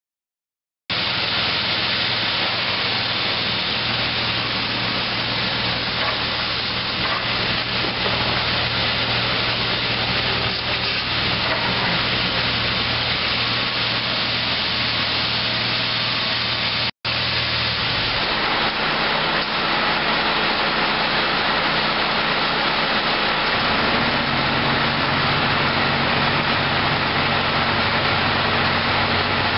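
1995 International 4700 vacuum truck running with its vacuum pump going: a loud, steady rushing hiss over a low engine drone, starting suddenly about a second in. It breaks off for an instant about 17 seconds in, then goes on with a steadier low hum beneath the hiss.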